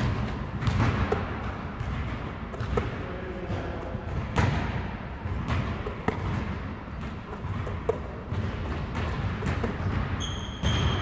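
A basketball thudding repeatedly against the backboard, rim and hardwood gym floor during rapid back-to-back layups, with a sharp impact about every second.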